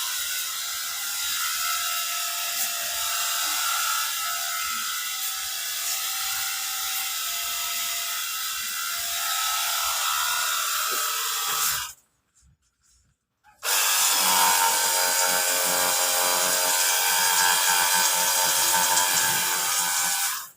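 Cordless battery-powered pressure washer's electric motor and pump running with a steady whirring whine. It cuts off abruptly about twelve seconds in, starts again under two seconds later, and stops sharply at the end.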